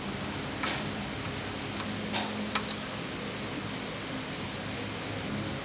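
Steady hum of a fan, with a few light clicks and short scrapes in the first three seconds.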